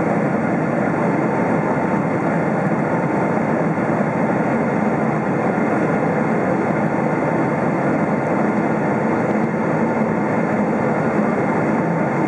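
Steady cabin noise of a Boeing 777-300 climbing out after takeoff: jet engine and airflow noise heard from inside the passenger cabin, with a faint steady tone.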